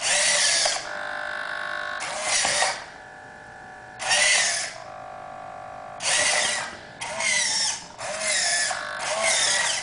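Hobby servo motors inside a 3D-printed InMoov robot hand whine in about seven short bursts, each under a second, as the fingers move through a programmed pattern of grips. Between some bursts a quieter, steady hum carries on.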